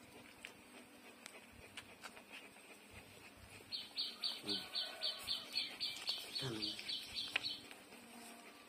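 A bird calling a quick, even run of high chirps, about four a second, starting about halfway in and lasting some four seconds.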